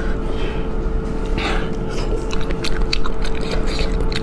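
Fingers tearing apart a roasted spicy rabbit head: a run of small sharp cracks and crackles of bone and crisp meat, thickest in the middle of the stretch. A steady hum runs underneath.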